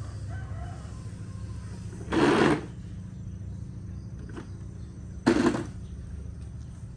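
Two brief scuffs about three seconds apart: slow, shuffling footsteps of a person relearning to walk after an illness, over a steady low hum.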